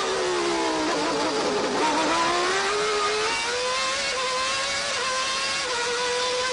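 McLaren-Honda Formula One car engine heard from the onboard camera: the revs fall as the car slows for a corner, then climb again as it accelerates out and hold a high, steady note, dipping briefly a couple of times near the end.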